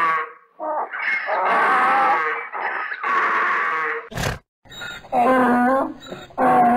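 Donkey braying, several long calls one after another, broken by a sharp click about four seconds in.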